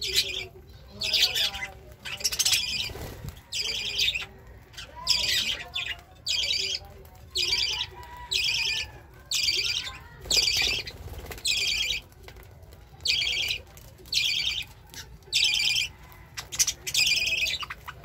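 Budgerigars at a seed feeder: a loud, harsh call repeated about once a second, over softer chatter.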